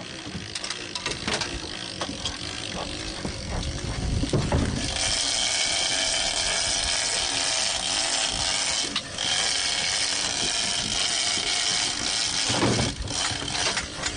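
Big-game fishing reel's drag and clicker letting line run off under a hooked large fish. It starts as a clicking ratchet, then about five seconds in turns into a loud, steady high-pitched screaming hiss as the fish takes line fast.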